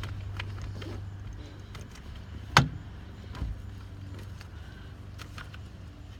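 Small clicks and taps from handling the steering-column combination switch, clock spring and its wiring, with one sharp click about two and a half seconds in and a softer knock just after, over a steady low hum.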